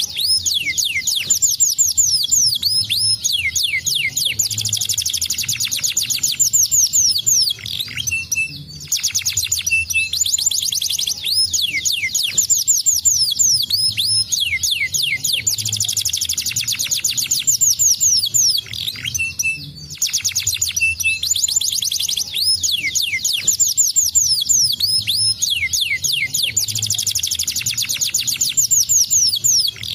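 Domestic canary singing a long, continuous song of fast trills and rapid sweeping whistled notes, broken by a few short pauses.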